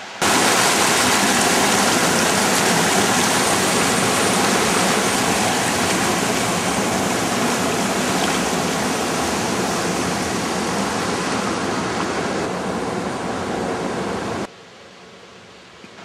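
Whitewater pouring through a mill weir's sluice and churning around a small boat, heard close up as a loud, steady rush. It cuts off suddenly about fourteen seconds in, leaving a much quieter flow of river water.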